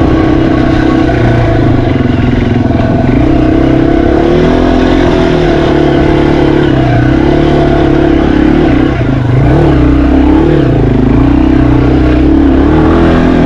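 Yamaha TW200's single-cylinder four-stroke engine running under way off-road, its revs rising and falling repeatedly as the throttle is worked.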